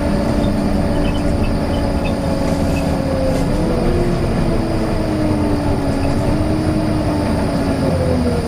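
Volvo B9TL double-decker bus running with a loud whine over a steady rumble. The whine holds its pitch, rises about three and a half seconds in, then slowly falls.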